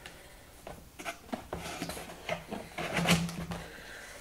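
Light, irregular clicks and rustles of a small cardboard product box being handled and turned over in the hands.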